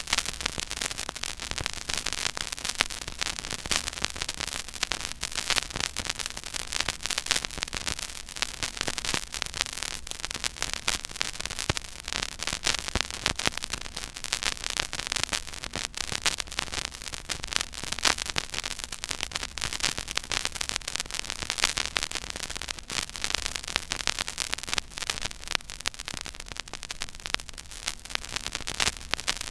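Stylus playing the silent groove of a 12-inch 33⅓ rpm vinyl record: steady surface crackle, full of dense clicks and pops, over a faint low hum.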